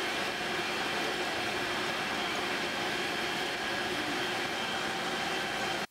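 Steady mechanical running noise with a faint hum in it, holding level and then cutting off suddenly at the very end.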